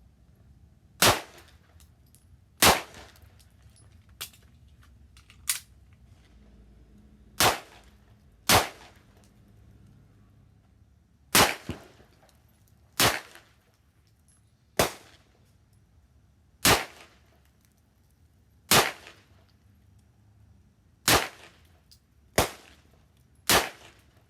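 Handgun shots in slow, deliberate fire: about a dozen loud, sharp reports spaced one to two and a half seconds apart, with two fainter shots in among them early on.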